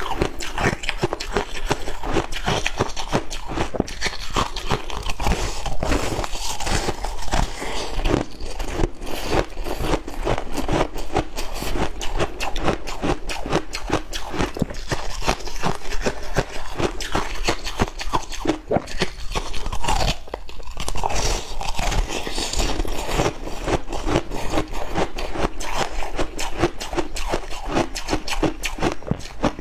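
Porous, cola-soaked ice being bitten and chewed, a dense, rapid crunching and crackling that keeps up throughout.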